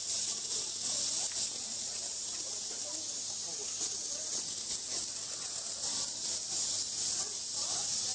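Steady, high-pitched hiss of a summer cicada chorus, with faint voices murmuring underneath.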